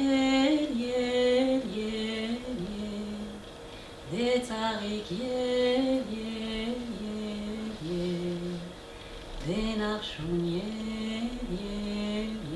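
A woman's solo voice singing an Armenian plowing song, unaccompanied. New phrases begin about four and nine and a half seconds in; each opens with a rising swoop and then steps down through long held notes.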